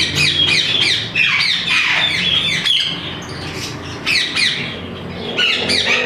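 Parrots squawking: many harsh calls, each falling in pitch, overlapping one after another, with a brief lull a little under three seconds in.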